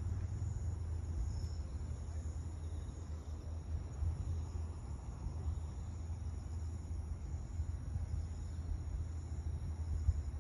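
Night insects, crickets, trilling steadily in high, faintly pulsing tones over a low, steady rumble.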